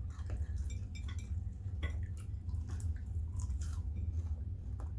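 Close-up chewing and eating sounds: irregular small clicks, smacks and crunches of food being bitten and chewed, over a steady low hum.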